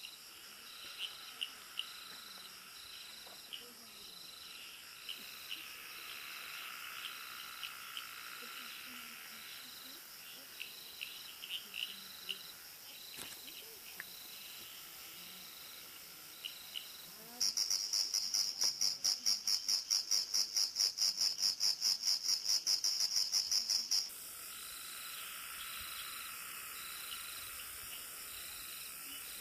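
Forest insect chorus: steady, cricket-like trilling at several pitches, one of them pulsing about twice a second, with a few short chirps. A little past the middle, a louder, higher-pitched insect call joins in rapid pulses, about four or five a second, for some six seconds and then cuts off suddenly.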